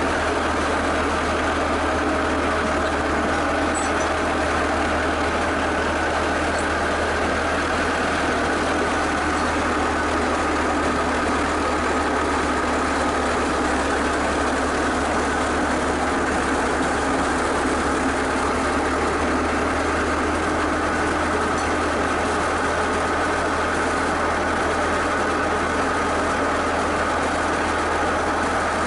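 Skid steer loader's engine running steadily at an even speed.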